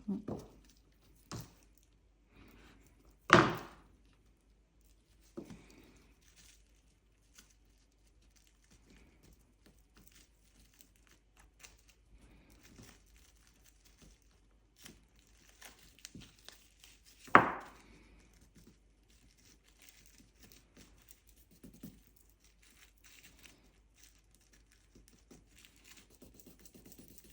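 Quiet handling sounds of trimming modelling paste: faint crinkling of cling film and small clicks, with two sharp knocks of a tool on the work surface, a few seconds in and again about halfway through.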